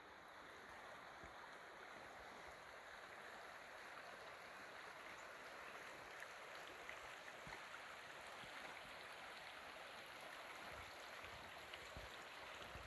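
A shallow creek running over a rocky bed: a faint, steady rush of water that grows slightly louder over the first few seconds.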